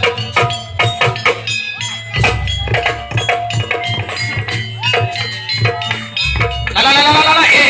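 Live percussion music accompanying a pencak silat dance: drums struck in a steady rhythm with ringing metallic tones over them. Near the end a loud, high, wavering pitched sound comes in.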